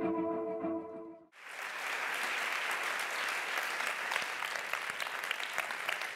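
Intro music fades out within the first second or so. Then a large audience applauds steadily from about a second and a half in.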